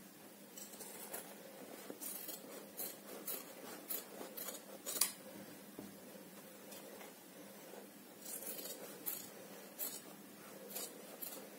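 Large steel tailoring shears snipping through folded fusing paper: a run of short, crisp snips, a pause of a few seconds in the middle, then more snips near the end.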